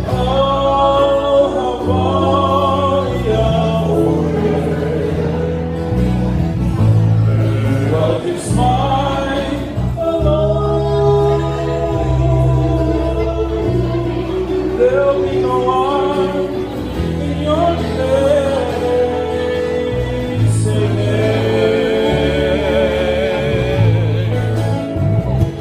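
Live band: male voices singing in harmony, with acoustic and electric guitars and a steady bass line that changes note every second or two.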